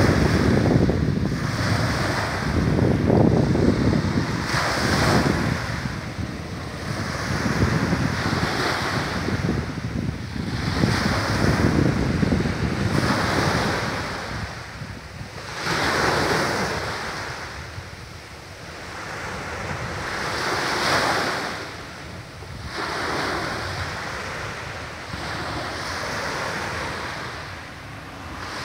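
Small waves breaking and washing up a pebbly beach, swelling and fading every two to three seconds. Wind buffets the microphone with a low rumble, heaviest in the first few seconds.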